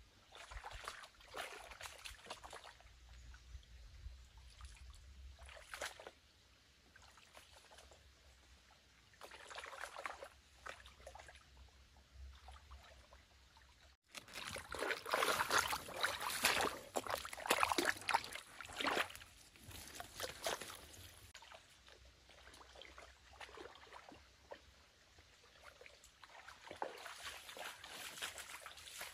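Water sloshing and trickling in irregular bursts as a hand net is swept through a shallow, muddy stream and lifted out, dripping. The splashing is loudest for several seconds just after the middle.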